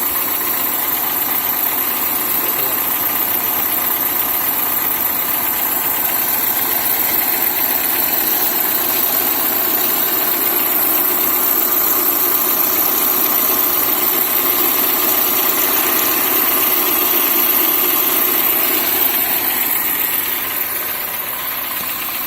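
Citroën C4 engine running steadily while the idler and tensioner pulleys of the accessory drive belt whistle, giving a steady thin whine over the engine noise. It eases a little near the end.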